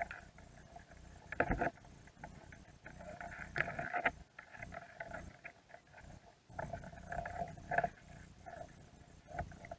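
Dungeness crabs' shells and legs scraping and knocking on a plastic mesh bait cage, picked up underwater: irregular bouts of rapid rasping clicks, loudest about a second and a half in, around four seconds, and near eight seconds.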